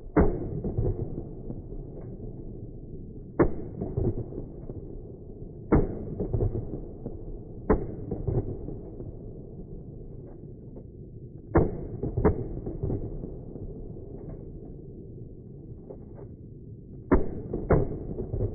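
A firearm fired eight times at an uneven pace, some shots in quick pairs, each shot followed by a short echoing tail; the shots sound muffled, with no high end.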